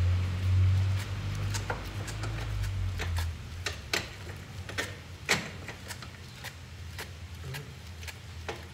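Irregular light clicks and taps of tools and metal parts as a hand works inside a washing machine's back, behind the drum motor, over a low hum that stops about three seconds in.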